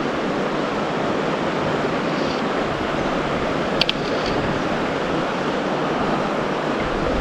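River water rushing steadily past, an even hiss with no pauses. A brief click about four seconds in.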